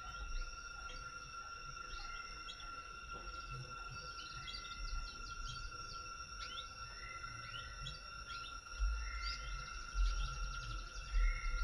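Tropical forest ambience: birds chirping with many short rising calls, over a steady high-pitched insect drone. Low rumbling bumps come in near the end.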